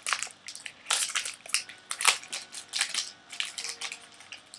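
A chocolate bar's wrapper being torn open and crinkled by hand: a run of irregular crackles and rustles, loudest about one and two seconds in.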